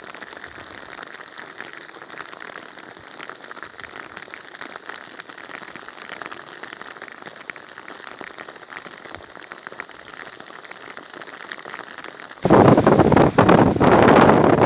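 Rain falling into a puddle: a steady patter of many small drops hitting water. About twelve seconds in it cuts to a much louder, surging rushing noise from a muddy river in flood, with wind buffeting the microphone.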